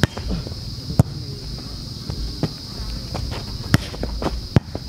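A volleyball being hit by hand in a rally: a series of sharp slaps roughly a second apart, the loudest near the end. A steady high-pitched insect drone runs underneath.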